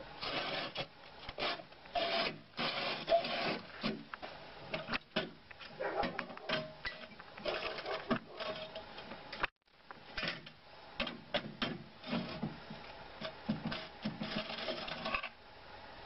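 Hand-operated steel compressed-earth block press being worked: metal scraping and rubbing with knocks as the lever, mould and drawer are moved, in irregular bursts.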